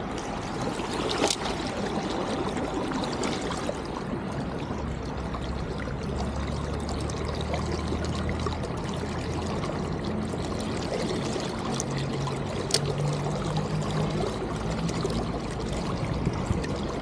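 Flowing water of a small stream, a steady rushing hiss, with a few sharp clicks and a low hum through the middle stretch.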